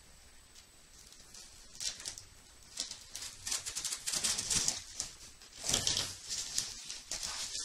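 Hands opening a cardboard shipping box: a run of short rustles and scrapes of cardboard and packing tape, getting louder over the second half.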